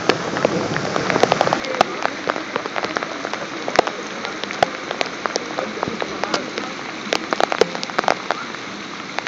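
Heavy rain falling: a steady hiss with many irregular sharp drop ticks close by.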